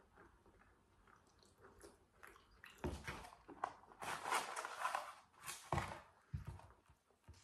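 Faint crackles of a lid being peeled off a small plastic sauce cup. From about three seconds in, a louder rustling and scraping of a cardboard fries carton as it is tipped and handled, with a few dull knocks on the table.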